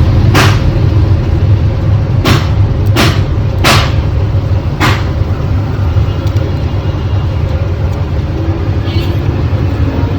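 Steady low machine hum from the repair bench, with five sharp clicks or taps spread over the first five seconds.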